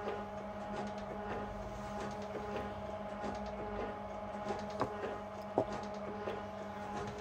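Metal shaper running, its ram stroking back and forth with the tool over an anvil clamped on the table. A steady motor and gear hum carries faint irregular clicks, with two sharper ticks about five seconds in.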